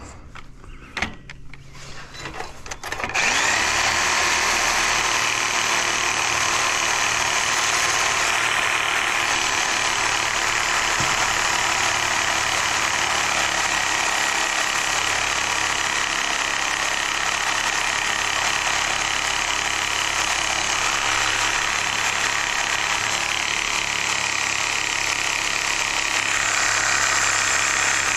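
A motor starts up about three seconds in and runs steadily, after a few light knocks.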